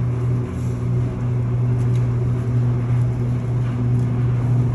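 Airport people-mover train running, heard from inside the car: a steady low hum with a noisy rumble under it.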